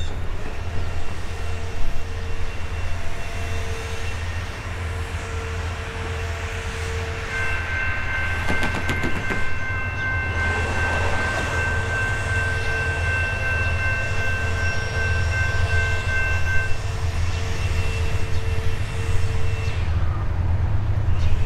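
Norfolk Southern GE D9-44CW diesel locomotive leading a freight train past, its air horn sounding over the steady low rumble of the engine. A single high horn note is joined from about seven to seventeen seconds in by two lower notes in a loud chord, then fades out near the end.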